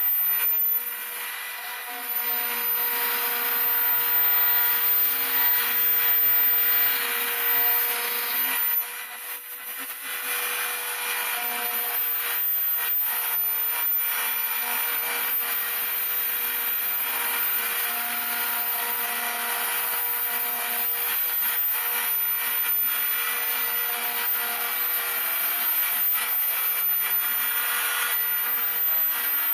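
Homemade CNC router milling model-aircraft wing ribs: the spindle runs with a steady high whine over the rasping of the cutter in the material, while a lower hum shifts pitch in steps as the axes move. The cutting noise drops briefly twice, about a second in and again near ten seconds.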